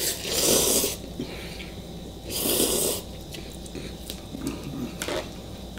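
A person slurping instant ramen noodles, two long slurps about two seconds apart, then quieter eating sounds with a few light clicks near the end.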